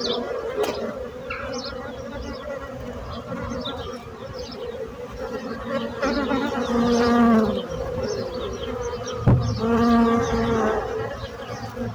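A swarm of bees buzzing in a steady hum, with single bees passing close and buzzing louder twice, about halfway through and again near the end. A short knock comes shortly before the second pass.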